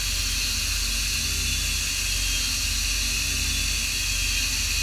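Haas ST-20SSY CNC lathe turning stainless steel bar stock under flood coolant: a steady hiss of coolant spray over a low, even machine hum.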